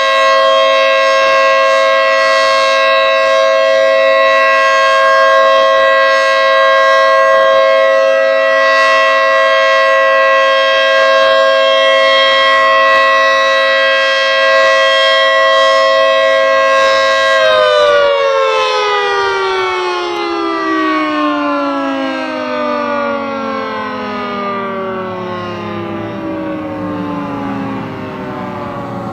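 Federal Signal 3T22 three-tone outdoor warning siren sounding its alert signal: a loud, steady chord of several tones, which about two-thirds of the way through begins to wind down, all the tones sliding lower together and slowly fading as the rotors slow.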